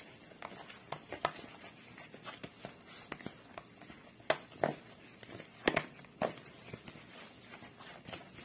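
Bread dough being kneaded by hand in a plastic bowl: irregular soft thumps and slaps of the dough pressed and turned against the bowl, about one or two a second, loudest a little past the middle.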